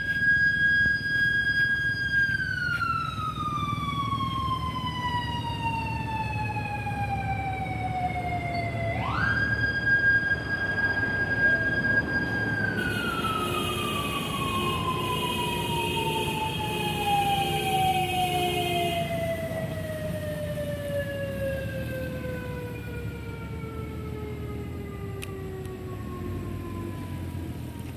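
A siren holds a steady high tone, then slides slowly down in pitch. About nine seconds in it winds quickly back up, holds, and falls away slowly again. Other steady tones join briefly in the middle, over a low continuous rumble.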